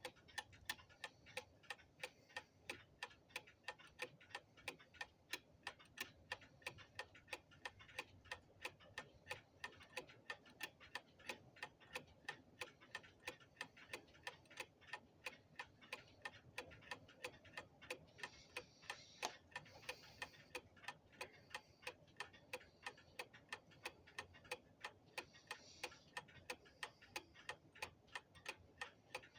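Strip deadbeat escapement of a 1904 Ingraham mantel clock movement ticking steadily, about three even ticks a second. The even beat shows the movement running well.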